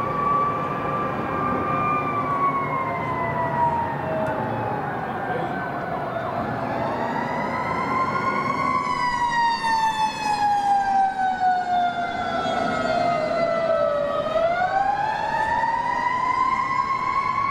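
Emergency vehicle siren wailing slowly. Its pitch falls for about six seconds, climbs back, falls again, then sweeps up quickly near the end and holds high. Steady background city noise runs under it.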